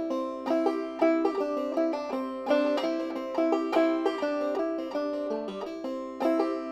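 Outro music: a quick tune on a plucked string instrument, each note struck sharply and ringing away.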